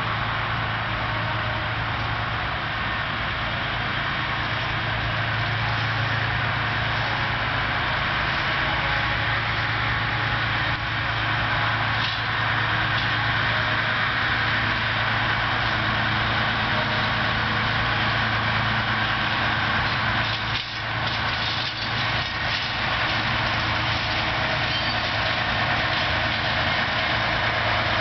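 Modernised SM42 diesel shunting locomotive (Newag type 6Dg/A) running steadily as it slowly approaches hauling empty freight wagons, its engine a low steady hum. It gets a little louder about a third of the way through.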